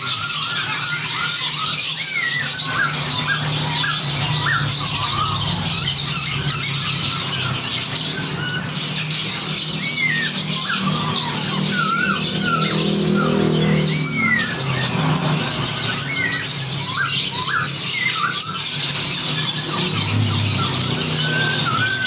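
Dense chorus of many songbirds chattering and whistling over one another in quick, overlapping calls, mixed to sound like a flock answering each other.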